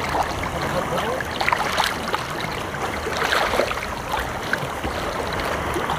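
Shallow seawater sloshing and lapping close by, with small irregular splashes as a man wades.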